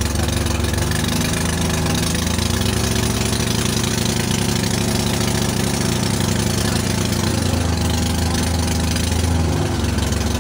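Small engine of a motorized outrigger fishing boat (bangka) running steadily and loud.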